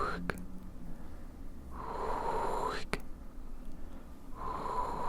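Close-miked ASMR mouth sounds: airy, breathy mouth noises about a second long, each rising in pitch and ending in a sharp click. They repeat about every two and a half seconds, twice in full here, with a click from the previous one just after the start.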